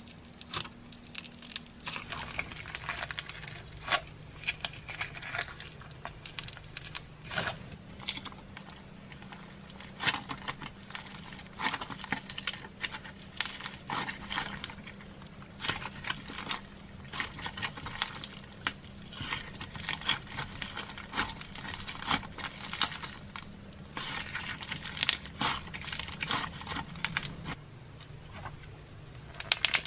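Slime being squished, poked and stretched by hand, giving a dense, irregular run of sticky clicks, crackles and small pops, with a faint steady hum underneath.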